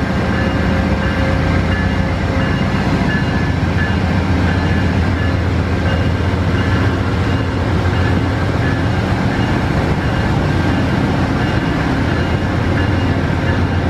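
Amtrak passenger train led by a P42DC diesel locomotive rolling slowly past close by. The cars' wheels rumble steadily on the rails under the steady drone of the locomotive moving away.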